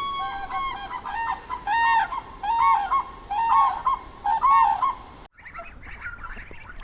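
An animal giving a quick series of short, honk-like calls, about two to three a second, which cut off abruptly about five seconds in.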